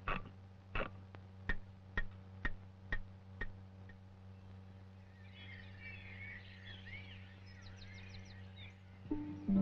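Clockwork metronome ticking about twice a second, the ticks fading out after about four seconds. Then a few seconds of high twittering chirps like birdsong.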